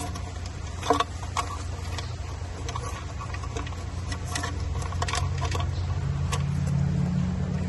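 Scattered small clicks and taps of wiring and plastic connectors being handled and pushed up into an e-bike's controller housing, over a steady low hum.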